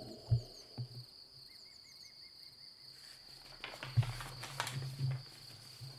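Pages of a thin paperback picture book being handled and turned, with soft paper rustles and a few short knocks, the sharpest about a third of a second in and around four seconds in. A steady high-pitched whine runs in the background throughout.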